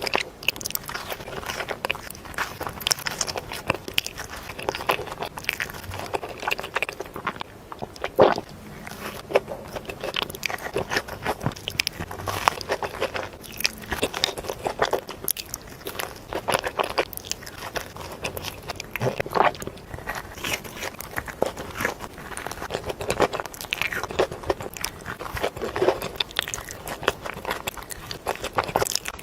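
Close-up eating sounds: a person biting and chewing crunchy food, with bursts of crackling crunches every second or two.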